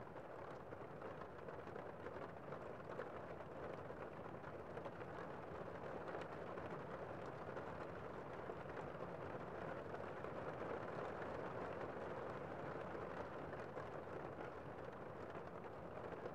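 Gentle rain falling steadily on a window pane: an even hiss with faint ticks of single drops.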